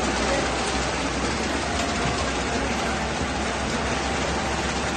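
Hitachi banknote sorting machine running, feeding notes at high speed into its stacker pockets: a steady, rapid rustle of notes over a low motor hum.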